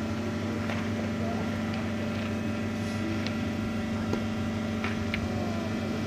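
Steady mechanical hum with a constant low tone, and a few faint clicks scattered through it.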